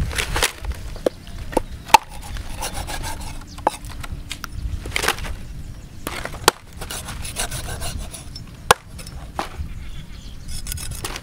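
Meat cleaver cutting a stingray's fins on a wooden chopping block: scraping, rubbing cuts through the wet flesh, with several sharp knocks of the blade striking the wood at irregular intervals.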